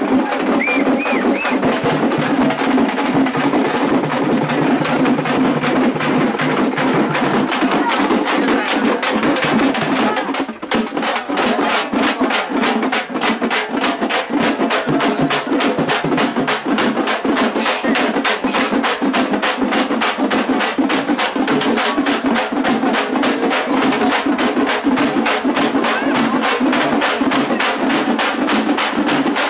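Procession drum band beating a fast, steady rhythm over a steady low tone, with a brief break about ten seconds in.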